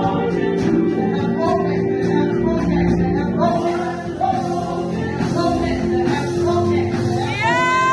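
Gospel worship music: singing over a steady instrumental backing. Near the end one voice slides up into a long held note.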